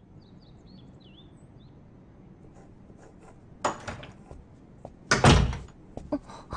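A door in a quiet room: a short knock-like tap about three and a half seconds in, then a louder, heavier thud about five seconds in as the door is opened. Faint high chirps are heard near the start.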